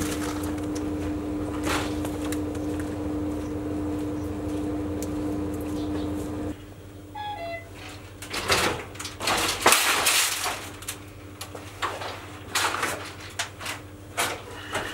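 Metal wire poultry cages being lifted and moved: rattling and several sharp metal knocks and clanks in the second half. Before that, a steady low hum that stops abruptly about six seconds in.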